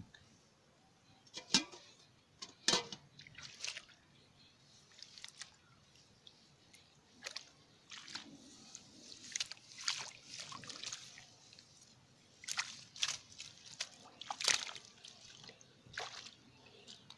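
Bare hands sloshing and groping through shallow muddy water and weeds, feeling for fish: irregular wet splashes and drips, with a few sharper slaps.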